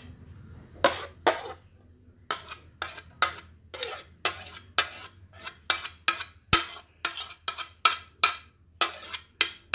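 A plastic spoon stirring liquid briskly in a bowl, knocking against the sides about three times a second in quick, uneven clicks, starting about a second in.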